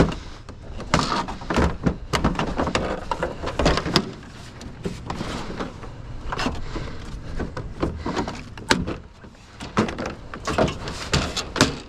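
Irregular knocks and clatter of scrap items being handled and pulled apart by hand.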